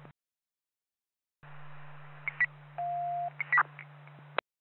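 Police radio channel heard through a scanner: after a second or so of silence a transmission keys up with hiss and a steady low hum, a few short clicks, and a single steady beep about half a second long in the middle, then cuts off abruptly without any speech.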